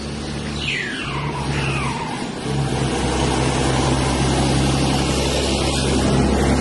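Road vehicle engine running with tyre and road noise that swells about two and a half seconds in as traffic draws near. Near the start, two short high whistles fall in pitch one after the other.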